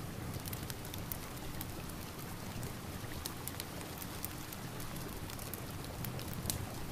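Steady rain hissing, mixed with a crackling wood fire, with frequent short sharp pops.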